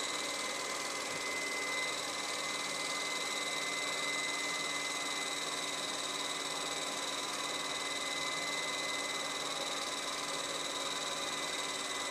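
Steady electronic hiss with two faint, steady high-pitched tones and a low hum underneath, unchanging throughout.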